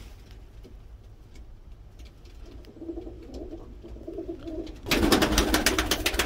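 Domestic pigeons cooing softly in a loft, the low cooing rising about three seconds in. Near the end a sudden, louder patch of rustling noise with many quick clicks comes in.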